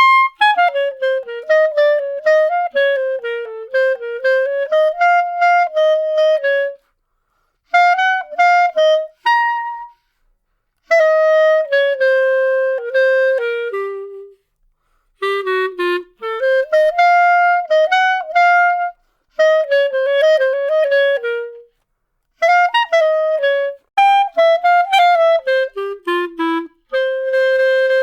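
Solo clarinet playing a melody of separate notes in short phrases broken by brief pauses, ending in a quick rising run.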